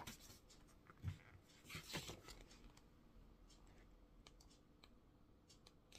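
Near silence, with faint rustles of paper pages of a scrapbooking pad being turned, about one and two seconds in.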